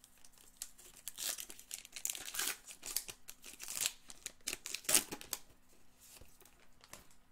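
Foil wrapper of a baseball-card pack being torn open and crinkled by hand: a run of crackling that is loudest about five seconds in, then dies down to a few light crinkles.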